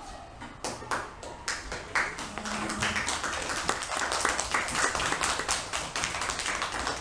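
A small group clapping unevenly, with quick, irregular claps starting about half a second in and growing denser.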